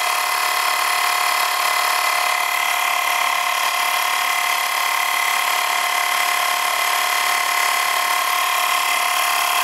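12-volt portable air compressor, powered from a cigarette lighter socket, running steadily while it inflates a motorcycle tire to seat the bead on the rim: an even, high-pitched motor whine with a hiss.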